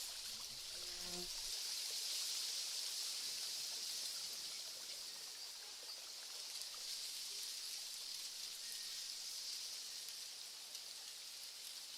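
Nature-sound ambience: a steady hiss of flowing water. A short low buzz sounds over it in the first second or so.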